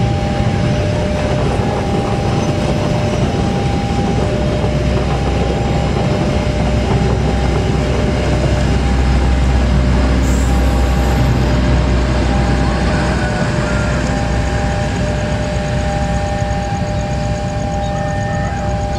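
Passenger train of executive coaches rolling past close by: a steady, loud rumble of wheels on the rails. A two-note tone keeps repeating in short beeps throughout.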